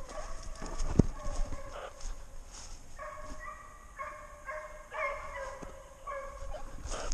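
Deer hounds baying as they run a trail: a string of short, pitched bays, about half a second each, coming one after another from about three seconds in. A single sharp knock about a second in.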